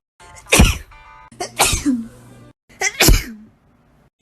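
Three loud human sneezes in quick succession, each a sudden explosive blast with a short voiced tail. They are separate clips spliced together, with a sharp cut to silence between them.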